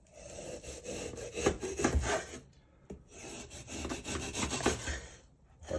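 Serrated knife sawing back and forth through a frozen melon rind filled with ice cream: a rasping scrape of quick strokes, in two bouts with a short pause between them.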